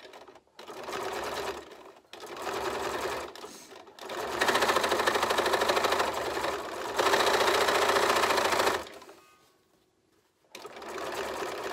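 Bernina 440 QE sewing machine stitching coiled fabric rope in two short bursts, then a longer, louder run that stops about nine seconds in; it starts again shortly before the end.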